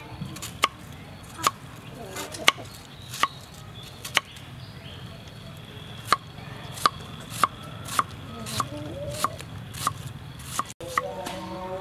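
Kitchen knife dicing an onion on a round wooden chopping board: separate sharp knocks of the blade on the wood, roughly one or two a second.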